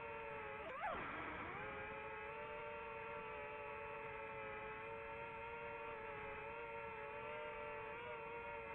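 DJI FPV drone's propellers and motors whining steadily in flight, with one quick rise and fall in pitch about a second in as the throttle changes.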